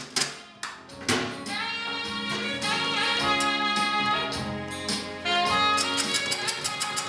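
Background music: a song with instruments and a steady rhythm.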